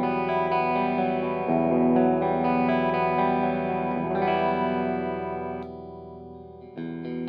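Electric guitar played through a Mesa/Boogie Road King II amplifier: chords left to ring, with a wavering, chorus-like shimmer. One chord fades out about six seconds in, and a new chord is struck just before the end.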